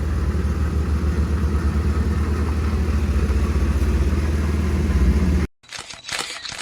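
1986 Ford Thunderbird's V6 engine idling with a steady, low, even exhaust pulse, which cuts off suddenly about five and a half seconds in. Brief scattered clattering follows near the end.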